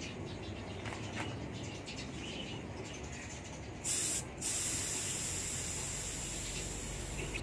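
Faint clicks of tools and hands on the wheel, then about four seconds in a steady high hiss of air escaping from the scooter's inner tube valve as the tube is deflated, with a brief break soon after it starts.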